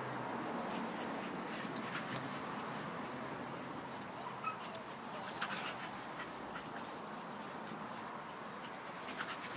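Staffordshire bull terrier making short excited dog sounds while playing. There are a few sharp ones about two seconds in and again near the five-second mark, over a steady background hiss.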